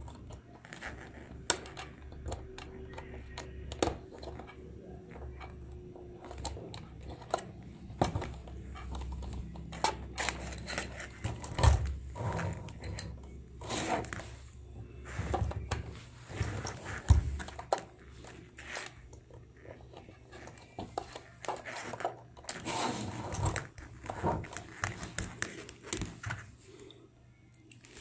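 Hands handling a plastic toy coin bank and alligator-clip test leads: scattered clicks, knocks and rustles, with two louder knocks in the middle, over a faint steady low hum.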